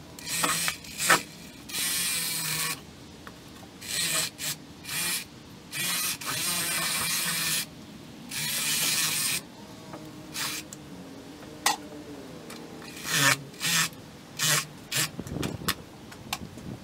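Fillet knife cutting through a sheepshead's scales and bones: a series of rasping scrapes, each about half a second to a second and a half long, with shorter, sharper strokes in the second half.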